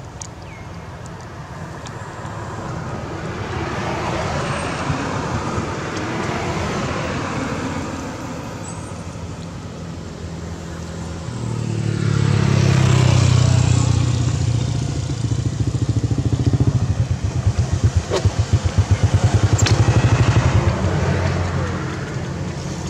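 Motor vehicle engines going by. A fainter one swells and fades a few seconds in. A louder one with a low engine note follows from about halfway and pulses rapidly before it dies away near the end.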